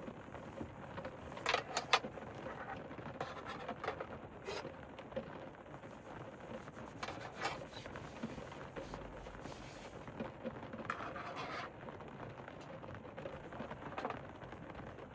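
Steady rain pattering on a camper van's roof, with scattered louder drops and sharp taps, several clustered near the start and about 7 seconds in.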